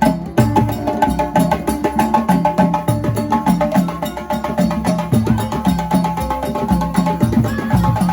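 Percussion-led music: dense, fast drum and knocking strokes in a steady rhythm under a sustained higher melodic line.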